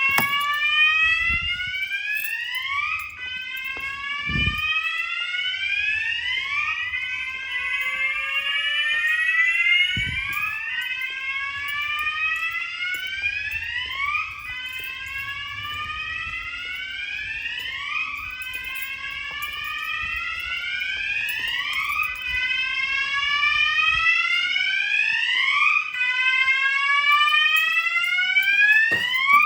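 Fire alarm sounders set off by a manual call point under test, sounding a loud, repeating rising sweep tone, each sweep lasting about three to four seconds. More than one sounder is going at once, slightly out of step, so the sweeps overlap. A few low thuds come through in the first ten seconds.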